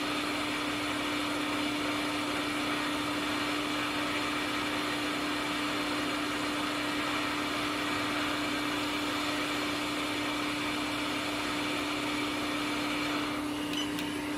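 Hot air rework station blowing steadily on a laptop logic board, a constant airy rush with a steady hum; the board soaks up a lot of heat, so the heating goes on a long time. About a second before the end the rush falls away, with a few light clicks.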